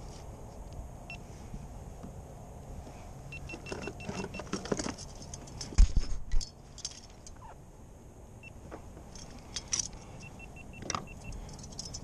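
Fishing gear being handled in a kayak: a metal fish lip gripper and tackle clinking and rattling, with a loud thump about six seconds in as a hand bumps the camera. A faint run of quick beeps sounds twice.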